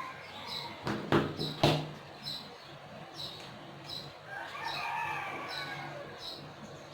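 Two sharp snips about a second in, half a second apart, from small scissors trimming a strip of false eyelashes. A rooster crows in the background about four seconds in.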